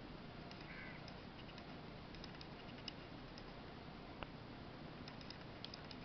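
Faint clicks of a Casio fx-991ES calculator's keys being pressed over quiet room tone: two small clicks in the middle and a few tinier ticks near the end.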